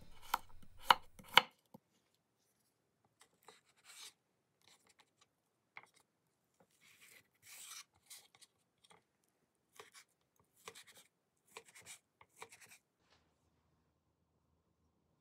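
Kitchen knife chopping through a broccoli stem onto a wooden cutting board: three sharp knocks about half a second apart, followed by fainter, scattered taps and handling sounds.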